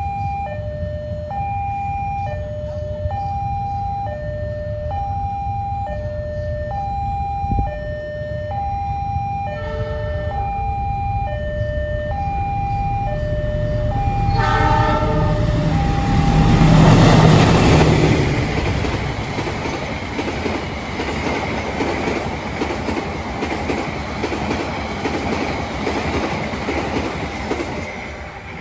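Railway level-crossing warning alarm ringing a two-tone chime, swapping pitch about once a second. A train horn sounds about ten seconds in and again near fourteen seconds. Then a train rushes past at speed, loudest about seventeen seconds in, with wheel clatter that carries on almost to the end.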